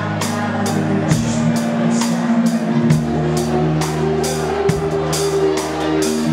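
A live band playing, heard from on stage close behind the drum kit. A steady drum beat with cymbal hits about twice a second runs over held bass notes that change every second or two.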